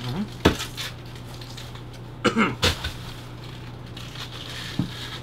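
Plastic water bottle having its cap twisted off and being handled, giving a few sharp clicks and crinkles, with a cluster of short handling sounds about two and a half seconds in, over a steady low hum.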